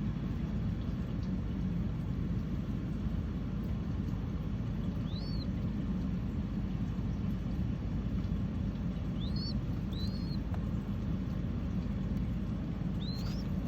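Four short, high chirps from a baby dove being hand-fed, over a steady low rumble.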